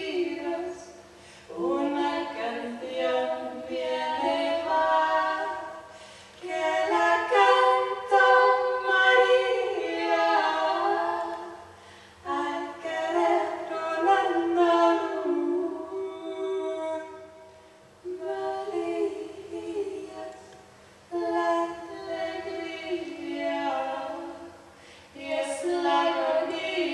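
Two women's voices singing a cappella in wordless, drawn-out phrases of a few seconds each, with short pauses between phrases. A faint steady hum lies underneath.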